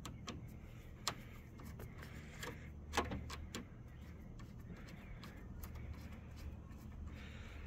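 Faint, scattered clicks and scrapes of a flat-blade screwdriver working the screw of a hose clamp on a radiator hose, over a low steady hum.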